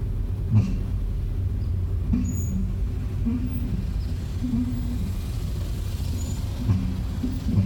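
2013 Hyundai's brakes making a low moaning noise that comes and goes several times, over the steady rumble of the car moving, with a couple of brief knocks.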